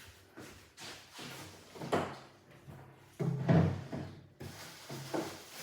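Eating sounds: chewing and clunks of a dish or utensils. The loudest sound comes a little over three seconds in.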